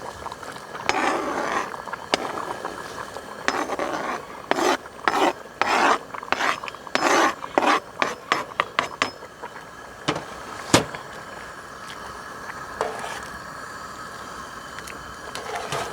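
A run of short raspy scraping strokes of a utensil against cookware as seasoning is put into and worked through the pot, then a single sharp knock about two thirds of the way through.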